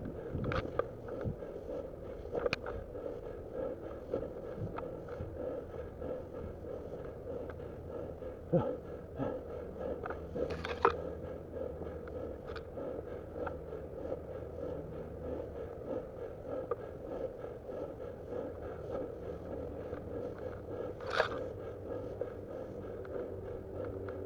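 Footsteps of a person climbing a steep slope through long grass and over rocks, with rustling and scraping and a few sharp knocks.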